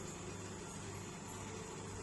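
Steady low hum with an even hiss from a convection microwave oven running its preheat cycle.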